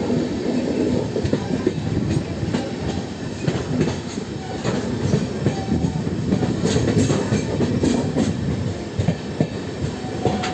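LHB passenger coaches rolling over the track: a steady wheel-on-rail rumble with scattered clacks as the wheels cross rail joints.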